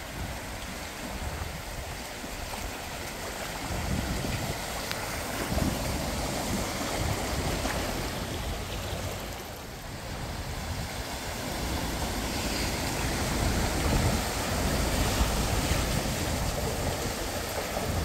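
Cars driving slowly through floodwater, first an SUV and then an estate car, their tyres pushing a wave of water that sloshes and splashes, over a low rumble of wind on the microphone. The water noise swells about four seconds in, dips near the middle and grows again in the second half.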